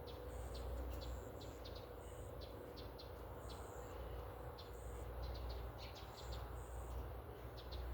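Small birds chirping, many short high notes in quick succession, mixed with brief high buzzing notes like insects, over a steady low rumble.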